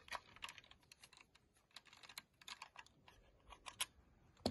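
Faint, irregular small clicks and ticks as a small screwdriver turns out tiny screws from a plastic car touchpad controller housing and the unit is handled.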